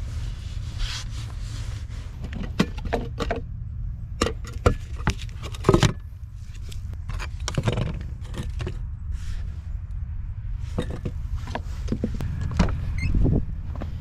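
Assorted clicks, knocks and rattles of camping gear being handled in the back of a car, with a car door being opened near the end, over a steady low rumble.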